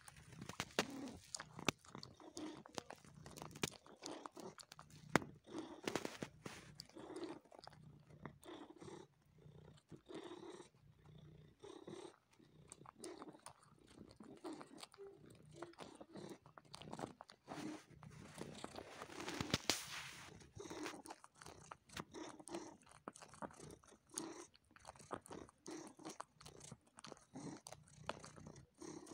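Domestic cat suckling on fabric: many wet sucking and smacking clicks over a low purr that pulses about once a second with its breathing.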